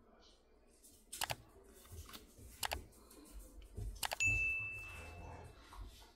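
Subscribe-button sound effect: three sharp clicks about a second and a half apart, then a single bell-notification ding that rings for about a second and a half. Faint rustling of paper stickers being handled sits underneath.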